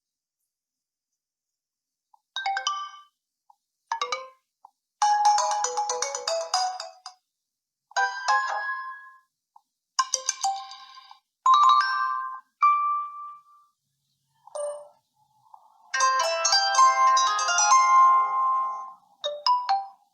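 A BQ-5007L Iron smartphone plays its preset ringtone and notification sounds one after another: about ten short electronic chimes and jingles with silent gaps between them. Most last about a second; one longer melody plays near the end.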